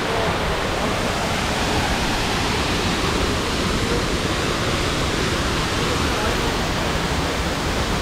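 Large waterfall: a steady, dense rush of falling water, even and unbroken.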